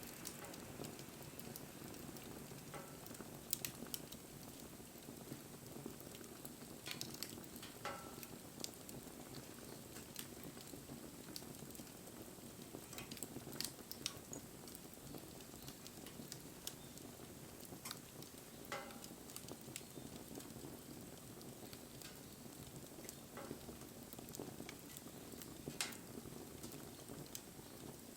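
Wood fire burning with a faint, steady hiss and scattered sharp crackles and pops.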